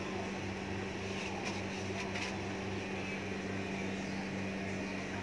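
Steady electric hum and fan drone from an electric cooktop, with a low throb pulsing a few times a second and oil sizzling faintly in the frying pan. A few light utensil clicks come about one and a half to two seconds in.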